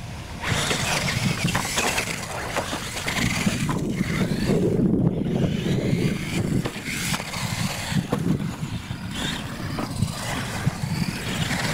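Radio-controlled monster trucks racing over dirt, with motors and tyres running and several short knocks as they hit ramps and obstacles.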